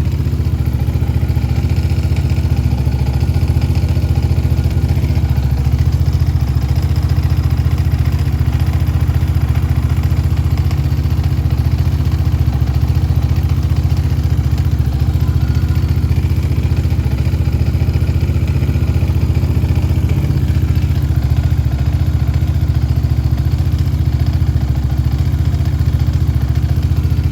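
Yamaha Raptor 700R ATV's single-cylinder engine running steadily at one speed, making a strange noise that is the reason it is being recorded.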